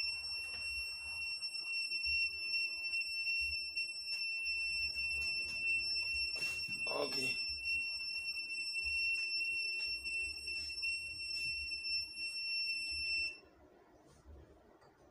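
Handheld antenna signal meter sounding a steady, high-pitched continuous beep that cuts off suddenly near the end; the meter's tone shows that it is picking up antenna signal.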